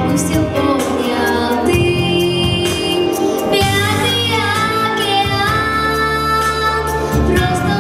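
A young girl singing a song into a handheld microphone over an instrumental backing with bass and a regular beat, holding long notes in the second half.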